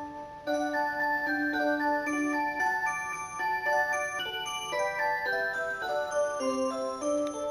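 Alarm clock's built-in electronic melody chip playing a Christmas song: a chorded melody of held, beeping notes changing step by step.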